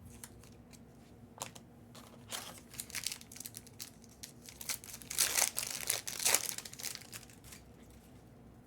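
Crinkling and tearing of a trading-card pack's foil wrapper as it is ripped open. The rustles come in an irregular run and are loudest a little past the middle.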